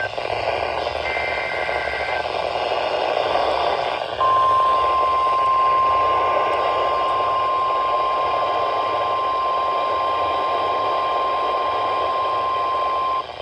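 Weather-radio receiver hiss and static, then about four seconds in the NOAA Weather Radio 1050 Hz warning alarm tone: one steady high tone held for about nine seconds that cuts off sharply near the end. It signals an emergency alert broadcast, here a Special Marine Warning.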